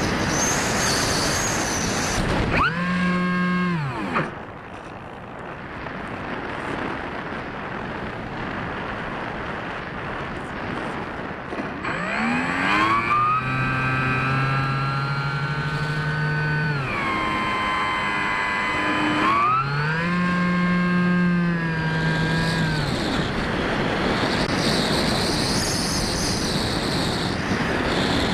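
Sky Surfer RC plane in flight, heard from on board: a steady rush of wind over the airframe, with the electric motor and propeller winding down about three seconds in, then whining up, holding and winding down twice more in the second half as the throttle is opened and closed.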